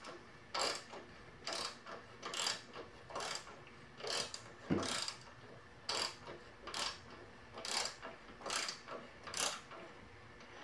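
Socket ratchet clicking in short bursts, about two a second, as it is swung back and forth to turn a spark plug thread chaser in a stripped spark plug hole on a push mower engine, cutting out the damaged threads.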